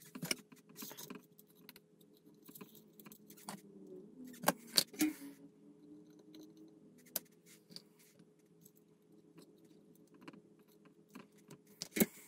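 Light clicking and rattling of small parts and tools being handled while wiring model electronics. A few sharper clicks stand out, about four and a half seconds in and again near the end.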